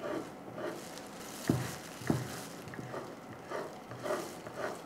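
Kitchen knife slicing roasted coconut meat into strips on a wooden cutting board: soft cutting strokes with light taps of the blade on the board, two taps a little louder about a second and a half and two seconds in.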